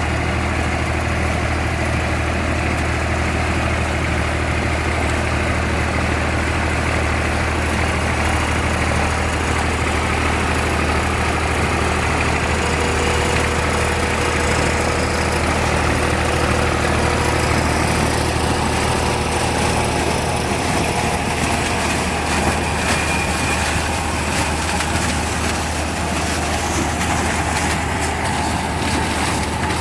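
Farm tractor's diesel engine running steadily, with harvesting machinery rattling over it, more so in the second half.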